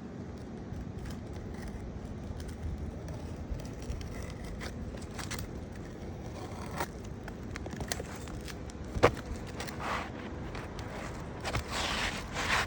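Scraping, crackling and scattered clicks of an asphalt shingle being cut and handled by hand, over a steady low rumble; a sharp click about nine seconds in is the loudest, and the scraping picks up near the end.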